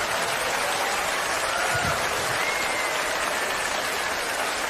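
Large live audience applauding steadily.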